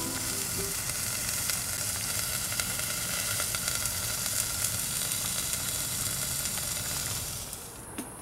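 Chicken, potatoes and vegetables sizzling in their juices in a cast iron Dutch oven over campfire coals: a steady crackling hiss that cuts off near the end.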